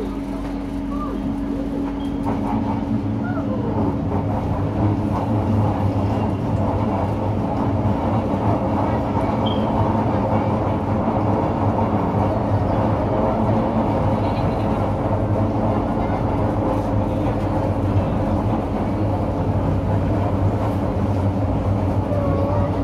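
Light rail train running along an elevated track, heard from inside the front cab: a steady electric hum with rolling rumble from the wheels on the rails, growing louder about two to four seconds in. A brief falling whine comes about three seconds in.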